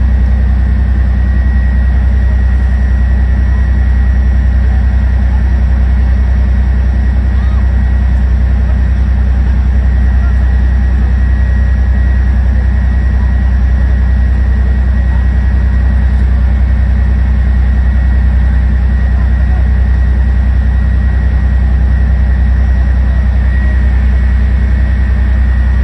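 Heavy armoured military vehicle's engine idling: a loud, unchanging deep rumble with a thin steady whine above it.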